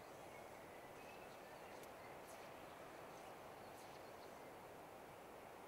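Near silence: faint outdoor ambience, a steady low hiss with a few faint, short bird chirps.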